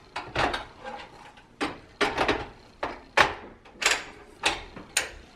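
Rip fence of a DeWalt DWE7485 table saw being unclipped, shifted and locked onto its other mounting points: a quick series of sharp clicks and clacks from the fence bracket and locking clips.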